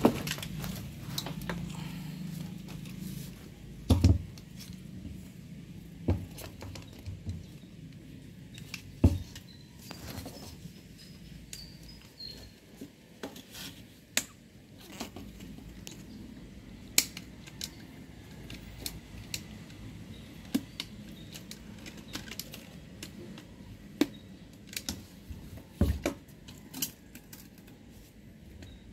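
Irregular metallic clinks and knocks of hand tools and metal parts being handled, with a few louder knocks about four, nine and twenty-six seconds in.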